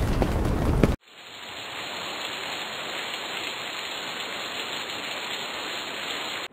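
A loud rumbling noise with crackles cuts off abruptly about a second in, followed by a steady hiss that fades in and holds.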